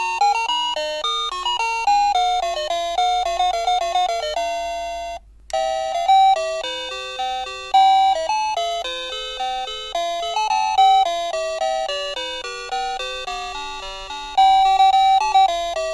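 Ang USA wireless doorbell's plug-in receiver playing its electronic melody ringtones: a quick run of chime notes, one tune stopping about five seconds in and the next starting after a half-second break.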